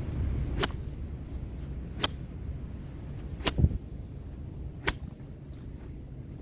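Four sharp cracks, evenly spaced about a second and a half apart, over a low steady rumble.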